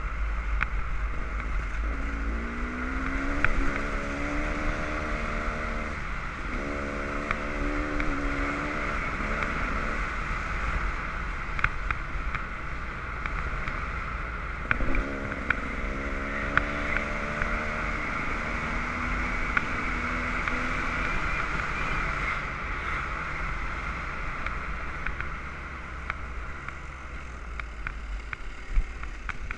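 Dirt bike engine running under way, its pitch climbing and stepping through several gear changes in the first twenty seconds, with occasional knocks from the ride over gravel.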